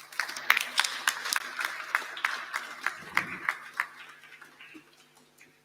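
Audience applauding, many hands clapping at once, thinning and dying away over the last second or two.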